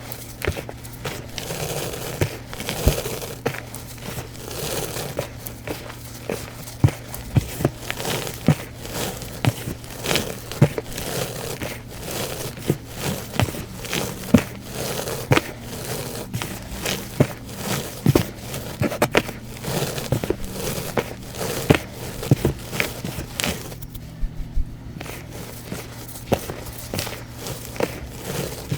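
Soft, dusty reformed blocks of Bon Ami powder cleanser being crushed and crumbled by hand, giving many small irregular crunches and crackles. A faint steady hum runs underneath, and the crackling pauses briefly near the end.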